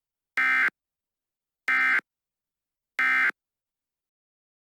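Three short, harsh buzzing data tones, about a second and a quarter apart: the Emergency Alert System's end-of-message SAME code, marking the end of the alert.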